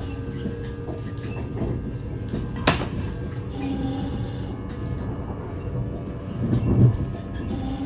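Sounds of an NS ICNG electric train: steady running noise with a short tone that repeats about every four seconds. A single sharp click comes about two and a half seconds in, and a louder swell of noise near the end.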